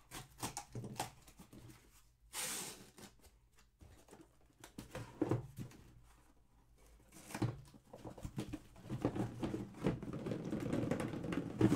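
A cardboard shipping case being opened: its packing tape slit with a box cutter in a short hissing cut, then the flaps pulled back with scraping, rustling cardboard and scattered knocks.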